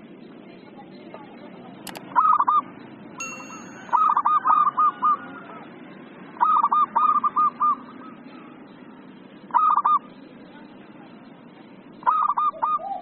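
Zebra dove (perkutut) singing: five short bursts of quick, repeated cooing notes a few seconds apart. A sharp click comes just before the first burst, and a brief ringing tone shortly after it.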